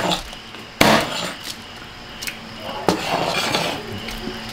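Sharp knocks and clinks of utensils and dishes at the table: one loud knock about a second in and a lighter one near three seconds, with a few small clicks between.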